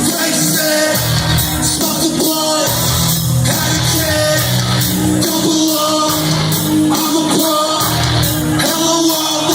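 Live rock band music played loudly, with a steady drum beat and voices singing and shouting over it.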